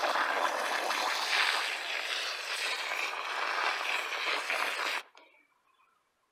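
Water spraying steadily from a garden hose spray nozzle into potting soil, cutting off abruptly about five seconds in.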